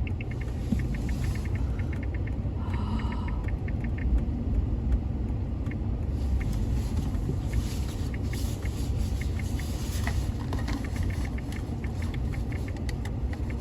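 Steady low rumble heard from inside a car, with a run of fast light ticks in the first couple of seconds.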